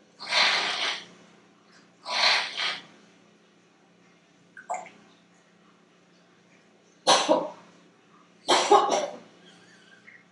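A coughing spell: four separate coughs spread over several seconds, the last one a quick double cough.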